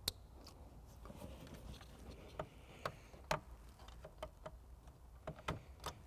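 Faint, irregular clicks and taps of plastic wiring-harness connectors being handled, pushed together and seated into a taillight socket, with a sharper click right at the start.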